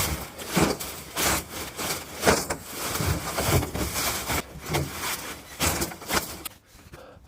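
Cut tree branches and leafy foliage rustling, scraping and crackling as they are pushed and packed into a trailer, in a run of irregular crunches that goes quieter near the end.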